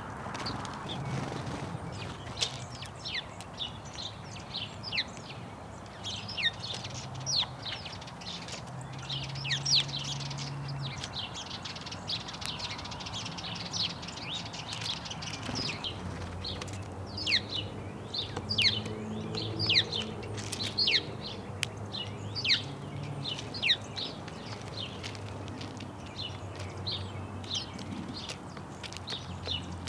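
House sparrows chirping continuously, many short falling chirps a second and often overlapping, over a faint low hum.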